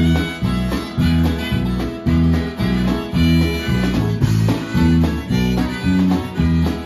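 Live acoustic blues-country band: strummed acoustic guitar and electric bass keep a steady beat while a rack-held harmonica plays sustained notes over them.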